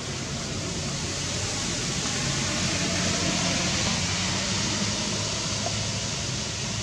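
Steady hissing background noise, a little louder in the middle, with a faint low hum beneath it.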